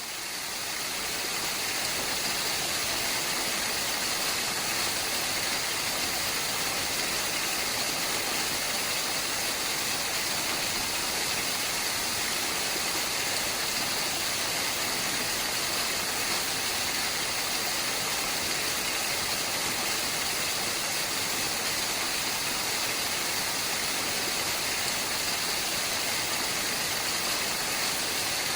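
A waterfall's falling water giving a steady, hissing rush that fades in over the first couple of seconds.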